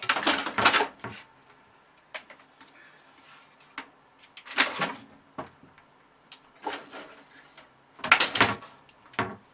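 A cat jumping up against a computer tower case, its claws scrabbling and knocking on the panel in three quick bursts about four seconds apart, with a few lighter taps in between.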